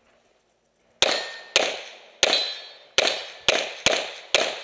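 Pistol shots fired in quick succession: seven shots starting about a second in, roughly half a second apart, each with a short ringing echo.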